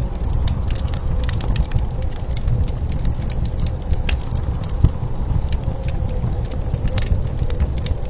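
Fire crackling with scattered sharp pops, over the steady low rumble of blizzard wind.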